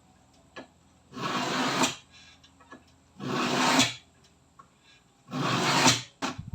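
Three rasping strokes, each under a second long and growing louder toward its end, about two seconds apart, followed by a short click.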